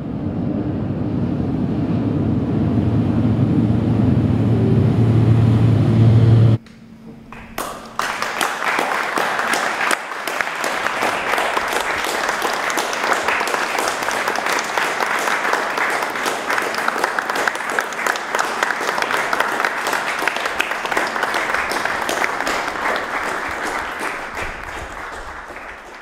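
A low, steady machine-like drone with a deep hum grows louder and cuts off abruptly about six and a half seconds in. After a brief lull, an audience applauds until the end, fading out at the close.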